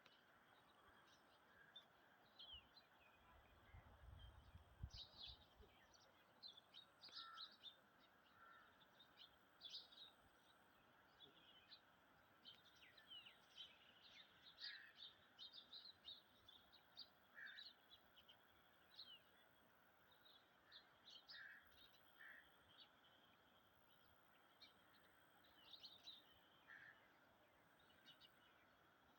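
Faint, scattered bird chirps and calls over quiet background noise, with a brief low rumble about four seconds in.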